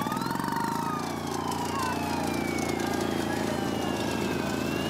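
A siren wailing slowly, falling for about four seconds and then rising again, over the steady pulsing run of a small engine.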